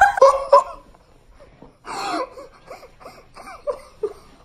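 A girl laughing hard in wheezy, breathy bursts, loudest at the start and again about two seconds in, then trailing off in short gasps of laughter.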